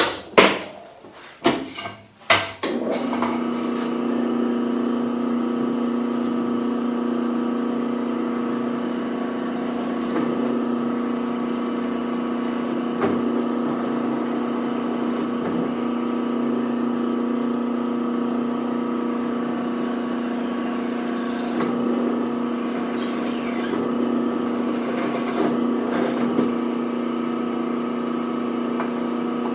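A few sharp clicks or knocks, then a drill press motor starts about three seconds in and runs with a steady hum, while a centre drill is used to drill out the rivet heads of a Swiss Army knife.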